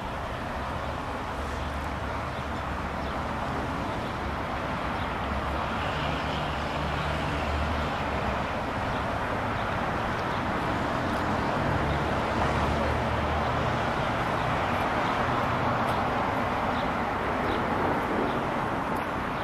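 Steady road traffic noise, with the low hum of passing vehicle engines coming and going.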